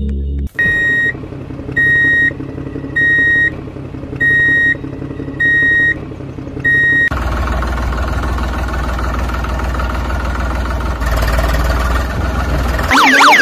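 A truck's reversing alarm beeping six times, evenly spaced a little over a second apart, then a truck engine idling steadily for the second half.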